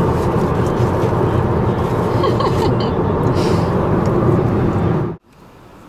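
Steady road and engine noise inside a car moving at motorway speed, a dense low rumble. It cuts off abruptly about five seconds in, leaving only a faint hum.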